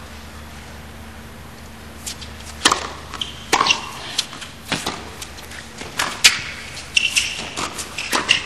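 Tennis rally on a hard court: sharp pops of racket strings striking the ball and of the ball bouncing, about one a second, starting about two seconds in, with a few short high squeaks. Under it is a low hum from the arena crowd.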